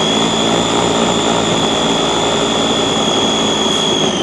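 Electric mini food chopper running at full speed with a loud, steady high-pitched motor whine, its blades chopping onions in the glass bowl.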